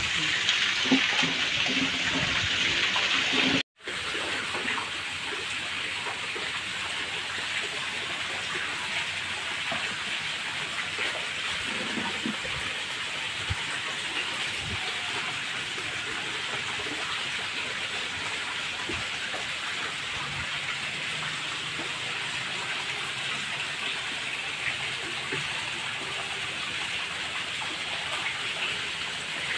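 Water pouring and splashing steadily into a koi pond, an even hiss. It cuts out for a moment about four seconds in and comes back a little quieter.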